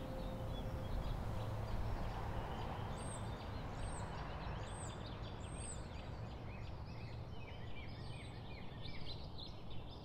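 Several birds chirping over a steady outdoor background hiss and low rumble. Four high, thin calls repeat a little under a second apart around the middle. The last held notes of music fade out in the first second or so.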